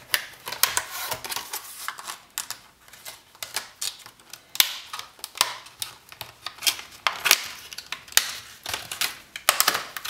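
Hands handling the plastic packaging of a laptop RAM module: an irregular run of sharp clicks and taps, a few of them louder.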